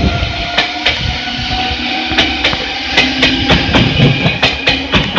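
Meitetsu 6800 series electric train running by, its wheels clacking over the rail joints in a run of sharp clicks that come faster from about two seconds in, over a steady running rumble.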